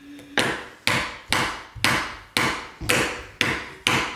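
Child hammering a nail into a small wooden block with a yellow-headed mallet: about eight even strikes, roughly two a second.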